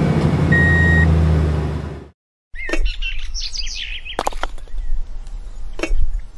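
A steady low hum with a single-pitch reversing beep sounding once, which stops abruptly about two seconds in. After a brief silence, birds chirp in many short, quick calls, broken by a few sharp clicks.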